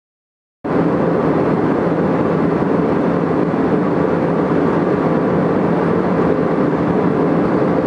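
Airbus A320 cabin noise in flight: a steady roar of engines and airflow with a faint hum, starting abruptly about half a second in after silence.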